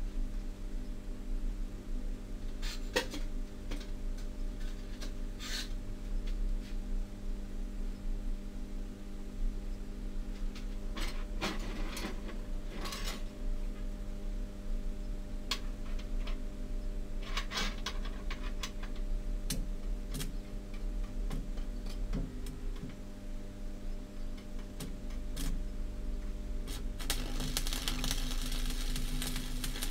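A steady low electrical hum, with scattered clinks and knocks of steel rods being handled on a steel welding table. About three seconds before the end, an electric welding arc strikes and crackles steadily.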